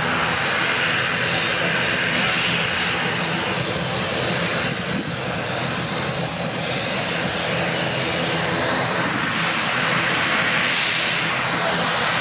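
Airbus A319's twin jet engines at takeoff thrust as the airliner accelerates down the runway away from the listener: a steady, loud roar with a thin, steady high whine.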